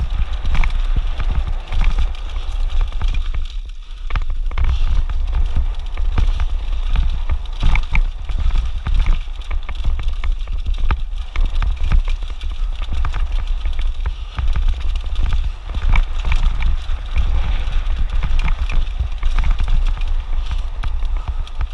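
Mountain bike rolling fast down a rocky trail: tyres crunching over loose stones and the bike clattering and rattling over rocks without a break, under a steady wind rumble on the microphone.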